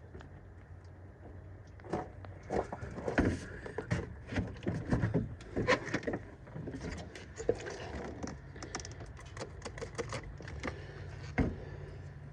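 Irregular clicks, light rattles and scrapes of hand work as a plastic truck air line is fed into a protective armor sleeve, over a steady low hum.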